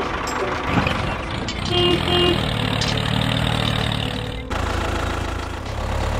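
Small motor of a DIY mini tractor running under load, a dense rattling noise over a low hum, with two short toots about two seconds in. About four and a half seconds in the sound changes abruptly to a steadier low hum.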